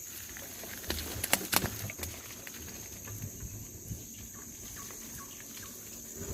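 Bicycle rattling and clicking over a rough, grassy path, with two sharp clicks about a second and a half in, over a steady high insect drone.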